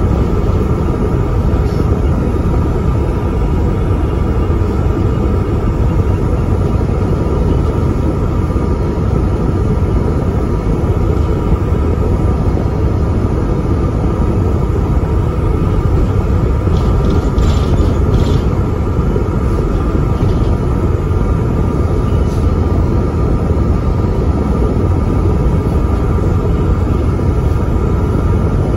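Interior of a Volvo double-decker bus with an Alexander ALX400 body, cruising: a steady engine and road rumble with a steady whine above it. There are a few light clicks or rattles about two-thirds of the way through.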